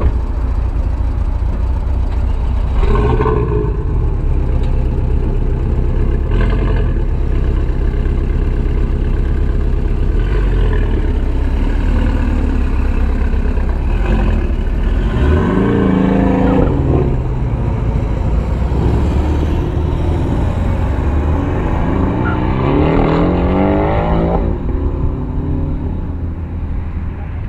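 Car engine running loud with revving: the pitch rises and falls about halfway through and again near the end.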